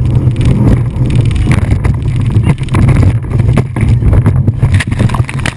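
Wind buffeting the action camera's microphone aboard a Fountain powerboat running fast, over the low steady drone of its engines. Repeated sudden knocks come through as the hull slams across a large wake.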